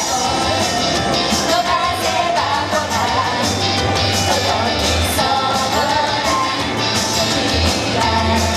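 Live idol pop: young women singing into handheld microphones over an upbeat pop backing track with a steady bass line.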